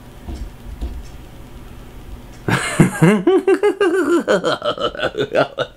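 A man's laugh: after a quiet stretch, a breathy burst about two and a half seconds in, then a long run of quick, pitched 'ha-ha' pulses that rise and fall, several a second.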